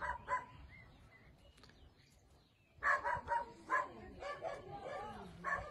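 A dog barking in short bursts: a couple of barks at the start, then a run of several about three seconds in and one more near the end.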